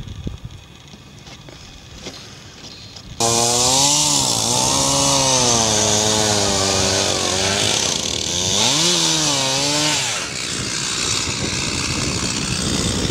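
Low background hiss for about three seconds, then suddenly a Stihl chainsaw running loud, its engine revving up and down as it cuts into ice and packed snow. Its pitch drops and climbs again about two-thirds of the way through.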